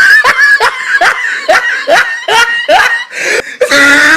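Laughter sound effect: a high-pitched laugh in short bursts that each swoop upward in pitch, about two a second, with a longer held laugh near the end.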